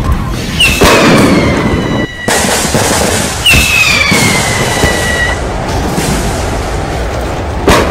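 Loud blasts and crackling, with two high whistles that drop in pitch and then hold for a second or two, and a sharp bang near the end.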